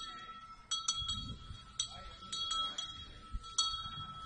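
Small metal bell ringing in uneven single strikes and quick pairs, each a bright ding, over a faint steady high tone.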